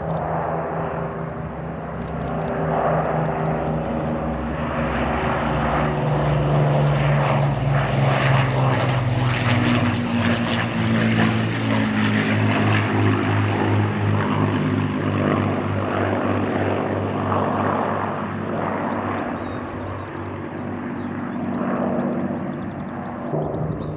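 Avro Lancaster's four Rolls-Royce Merlin V12 engines droning as the bomber flies low past. The drone builds over the first several seconds and drops in pitch as the aircraft goes by, then eases and swells again near the end.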